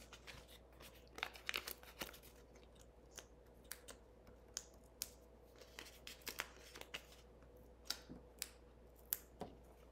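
Faint, scattered crackles and ticks of foam adhesive dimensionals being peeled from their backing sheet and pressed onto small paper pieces.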